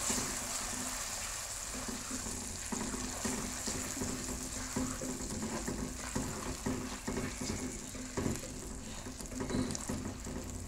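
Semolina, cardamom and dry fruits sizzling as they roast in ghee in a steel pot, with a spatula stirring and scraping against the metal in irregular strokes.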